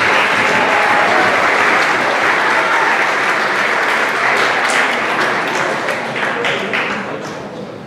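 Audience applauding, a dense steady clapping that thins out and dies down near the end.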